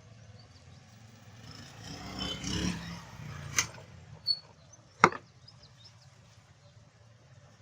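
Handling noise of wires and sleeving being worked by hand, followed by three sharp clicks or knocks, the loudest about five seconds in.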